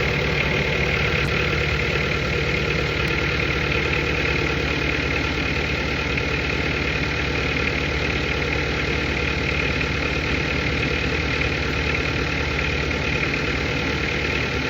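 An engine idling steadily with an even hum and no change in speed.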